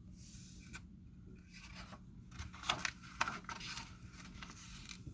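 Faint rustling and scraping of something being handled, with a few light clicks, the clearest about two and a half and three seconds in.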